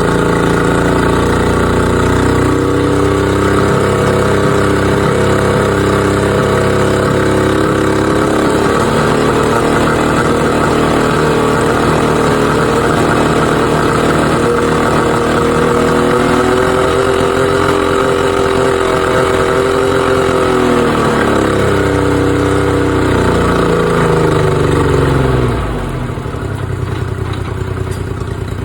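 2007 Honda 50 hp four-stroke outboard engine running on a start-up check. Its pitch rises past the middle as it is revved up, falls back, and the engine drops quieter near the end.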